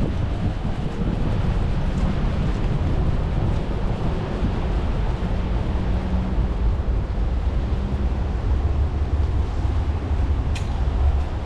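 City street ambience: a steady low rumble of traffic, with wind buffeting the microphone.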